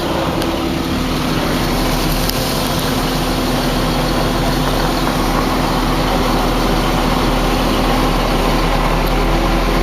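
Combine harvester running steadily while harvesting soybeans: a constant engine drone with a steady hum over machinery noise.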